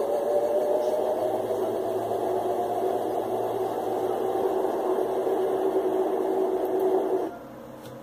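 Electrolux LF11 top-loading washing machine spinning up, a steady run with a whining 'iuiuiu' that climbs slightly in pitch and then holds, cutting off abruptly near the end. The whine comes from loose bolts on the motor and pulley, which the owner cured by tightening them. It is heard played back through a computer's speakers.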